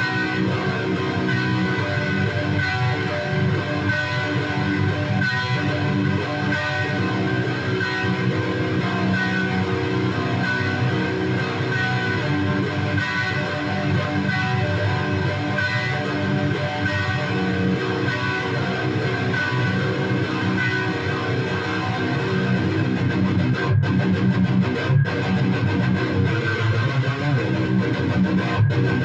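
Electric guitar played through an Engl Artist Edition amp, a continuous passage that gets a little louder in the last few seconds.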